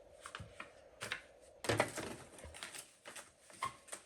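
Packaging rustling and crinkling as small camera accessories are unwrapped by hand, in irregular handling noises with a louder cluster about two seconds in.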